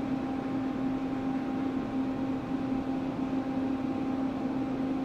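JR West 287 series electric train standing at the platform, its on-board air conditioning and auxiliary equipment humming steadily with a low steady tone.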